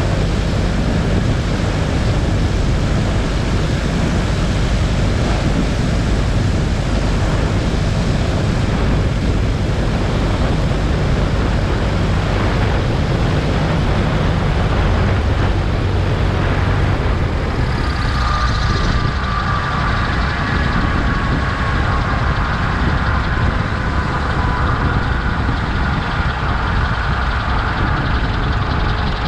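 A light aircraft's engine and propeller droning steadily in flight. A fainter, wavering higher tone joins about two-thirds of the way through.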